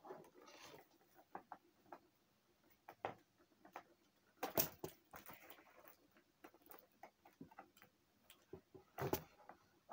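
Scissors cutting tape on a cardboard box, and the box being handled: scattered faint clicks and snips, with louder knocks about four and a half seconds in and again near the end.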